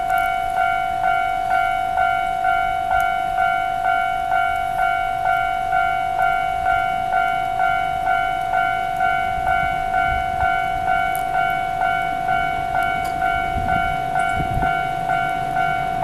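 Japanese railway level-crossing warning alarm ringing, an electronic bell striking about twice a second over a steady ringing tone, signalling that a train is approaching and the barriers are down. Low-pitched noise swells faintly under it toward the end.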